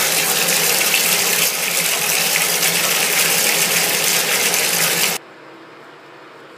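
Bathtub tap running, a steady stream of water splashing into the tub, which cuts off suddenly about five seconds in.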